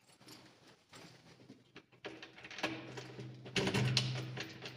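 A bunch of keys rattling, and a key scraping and clicking in an apartment door lock as it is tried, loudest a little over halfway in; a low steady hum runs under it through the second half.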